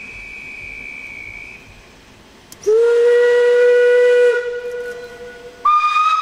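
A narrow-gauge steam locomotive's whistle sounds a loud, low blast of about a second and a half over a hiss of steam, after a faint, thin, high whistle tone at the start. Near the end a second, higher-pitched whistle blast begins.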